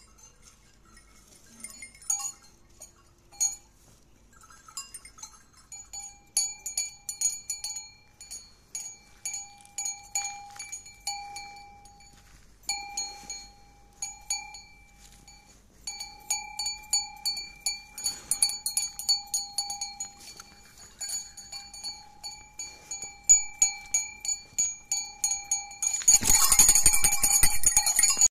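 Brass bells on a Krampus costume's belt clanging as the wearer shakes and moves, a few strokes at first, then quick repeated clangs from about six seconds in. Near the end comes about two seconds of loud, dense clatter.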